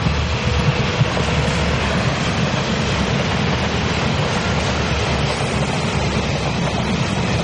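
Taiwan Railway DMU2800 diesel multiple unit passing close by: a steady, loud rumble of its underfloor diesel engines and wheels on the rails, with a sharp click right at the start.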